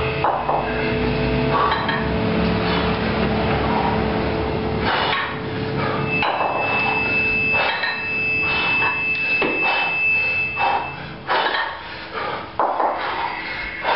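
Two 24 kg kettlebells knocking and clanking against each other as they are swung and cleaned in a long-cycle set. The metal knocks come repeatedly, mostly in the second half.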